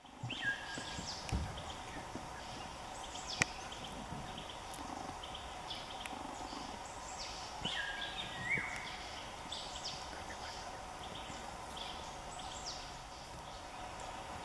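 Forest birds calling: many short, falling whistled notes and a few brief held whistles, over a steady background hum. There is a low thump about a second in and a sharp click a little later.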